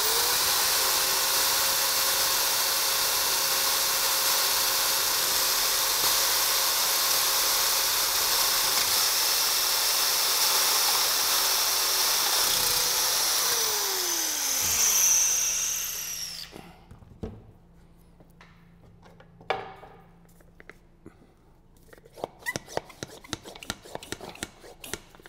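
Milwaukee rotary hammer drilling a 16 mm hole into a perforated clay brick in rotary-only mode, without hammer action, so as not to break the brick's thin webs; a steady motor whine under the noise of the bit cutting. The whine falls in pitch as the drill runs down and stops about sixteen seconds in, followed near the end by a few light clicks and scrapes.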